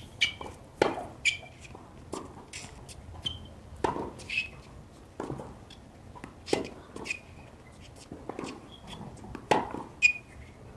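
Tennis rally on a hard court: a string of sharp racket-on-ball strikes and ball bounces, the near player's strokes the loudest, with short high squeaks of shoes on the court between them.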